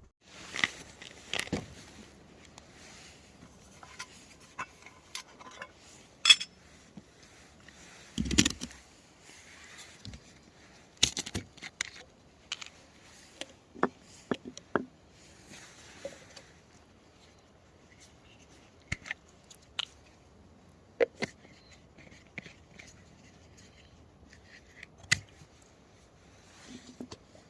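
Irregular sharp clicks, scrapes and rustles of camp cooking gear and food packaging being handled while a meal is fixed: wrappers rustling and tearing, and utensils knocking and scraping against a pot.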